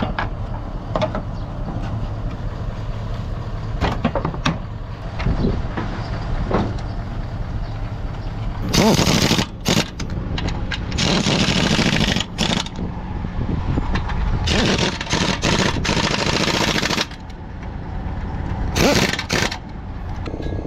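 Pneumatic impact wrench fastening bumper bolts, running in several loud bursts of one to two seconds from about nine seconds in, over a steady low hum. A few short knocks come earlier as the panel is handled.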